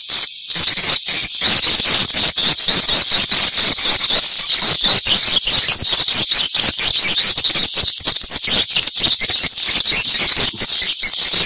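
Swiftlets twittering: a loud, dense chatter of many high, shrill chirps, continuous apart from brief breaks.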